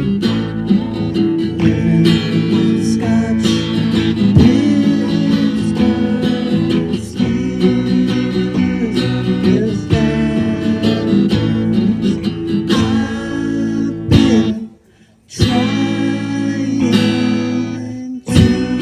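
A band playing a song, led by strummed acoustic guitar. The music drops out for about half a second about 15 seconds in, then comes back in.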